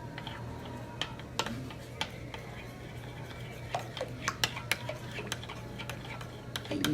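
A utensil stirring a thick mix of condensed milk and cream in a bowl, clinking and scraping against the bowl in irregular strokes that come quicker and louder from about halfway through.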